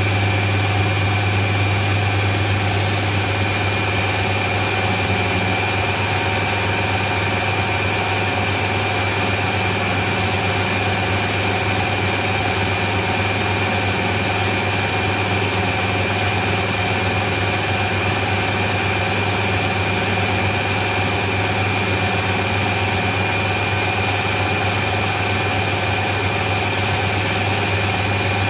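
Taiwanese metal lathe running steadily, its spindle turning a steel test bar during light finishing cuts with a high-speed steel tool. It makes an even low hum with a thin high whine above it.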